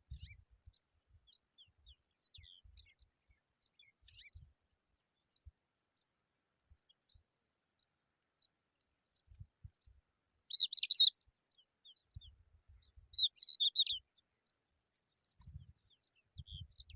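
A bird chirping: two short bursts of high chirps, the first about 11 seconds in and the second about 13 to 14 seconds in, with faint scattered chirps between, over soft low rustling thumps.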